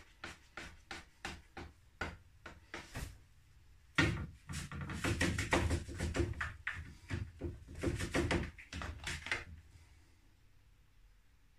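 A slotted spatula scraping and knocking against a baking tray as it works through dough, in quick short strokes about three a second, then louder and denser from about four seconds in, stopping about two seconds before the end.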